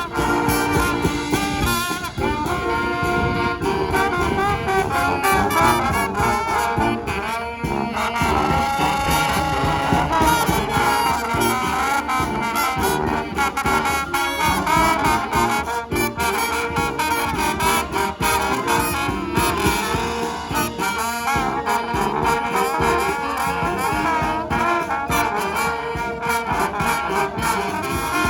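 Live brass band playing an instrumental passage, trombones and trumpets over a steady drum beat.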